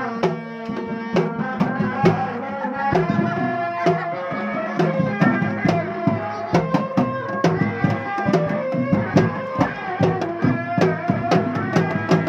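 Live Sundanese reak ensemble music: drums beat a quick, steady rhythm under a held, wavering melody line.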